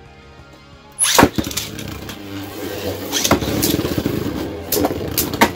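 Two Beyblade Burst tops launched into a plastic stadium about a second in, hitting the floor with a sharp clatter. They then spin with a steady scraping rattle, broken by several sharp clacks as they collide; one runs on a metal-tipped Charge Metal driver.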